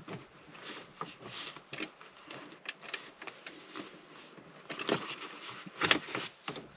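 Scattered small clicks, taps and rustles of hands fitting a shift knob onto a car's gear lever, with two louder knocks about five and six seconds in.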